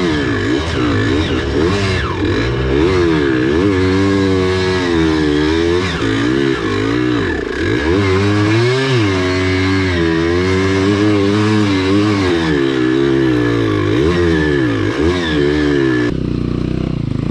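Off-road motorcycle engine running under load, its revs rising and falling every second or two as the throttle is worked. About a second before the end it settles to a lower, steadier note.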